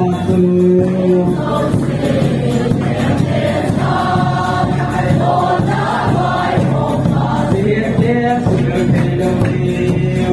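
Church congregation singing a hymn together, accompanied by an acoustic guitar and a large drum beating in time.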